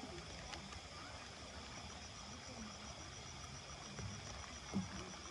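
Night insects chirping steadily at a high pitch, with faint small clinks and a single sharp knock about five seconds in.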